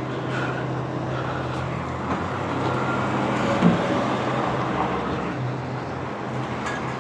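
Freightliner garbage truck with a McNeilus rear-loader body, its engine running steadily. Louder mechanical noise builds in the middle, and there is one short knock about three and a half seconds in.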